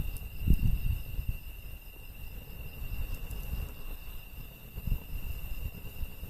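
Insects chirring steadily and high-pitched in the background, over an uneven low rumble from a burning wood campfire with a few faint crackles; the rumble is strongest in the first second or so.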